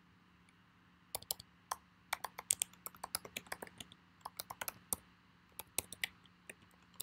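Computer keyboard typing: a fast run of keystrokes starting about a second in, thinning out to a few separate key presses in the second half.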